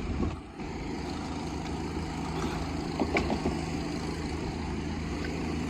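Steady low engine rumble with a level hum, like a vehicle idling, and a few faint ticks about three seconds in.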